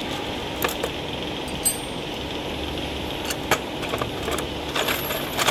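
Scattered light metallic clicks and clinks as a sensor and its metal mounting bracket on an automatic can seamer are handled and adjusted, the sharpest about halfway through and several more near the end. Under them runs a steady mechanical hum.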